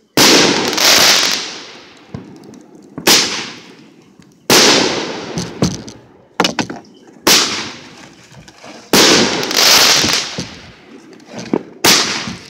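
Fireworks going off close by: six loud bangs spaced one to three seconds apart, each trailing off over a second or two.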